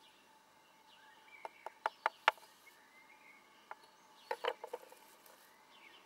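A few sharp clicks or knocks in two quick clusters, one about a second and a half in and another around four and a half seconds in, over faint bird chirps.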